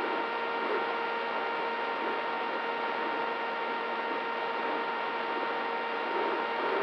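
Brushless DYS Fire 2206 motor spinning a Gemfan 6x4 propeller on a flying wing, heard from its onboard camera: a steady, unchanging whine over wind hiss.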